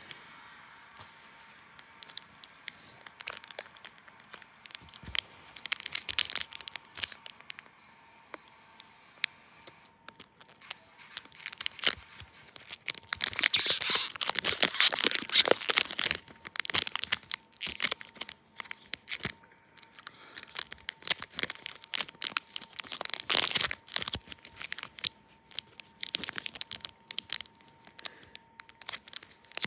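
Hockey card pack wrappers being torn open and crinkled, in irregular bursts of rustling and tearing that are busiest around the middle and again later on.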